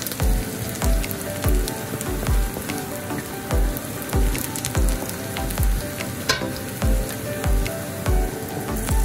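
Diced onion sizzling in hot oil in a metal wok while a wooden spatula stirs and scrapes it, with many small crackles. A regular low thump comes about one and a half times a second, and a single sharp click sounds about six seconds in.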